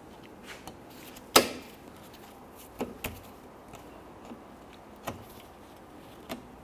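Plastic push-pin retainers on an underbody splash shield being pried and popped out with a hooked pry tool: one loud snap about a second and a half in, then several lighter clicks.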